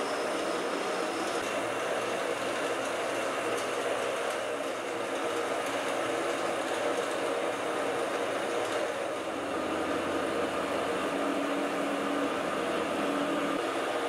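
Metal lathe running steadily, its motor and spindle whirring while the tool cuts into the spinning metal workpiece, first facing it, then centre-drilling and drilling it with a 20 mm twist drill. A lower hum joins the sound about nine seconds in.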